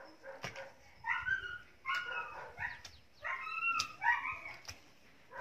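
A dog barking in a run of short, quick barks, with a few sharp knocks of a hoe chopping into the soil between them.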